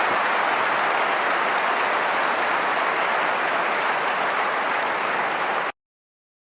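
Large convention-hall audience applauding steadily, a dense wash of clapping in response to a line in a speech, which cuts off abruptly near the end.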